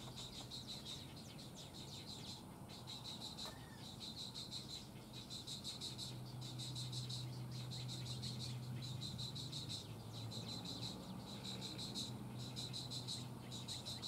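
Insects calling in high, rapidly pulsing trills, each burst about a second long, repeated over and over with short gaps, over a steady low hum.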